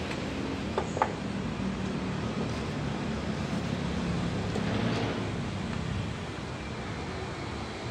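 Steady hum of street traffic, with two sharp metallic clicks about a second in from hand tools on the engine's exposed valve train.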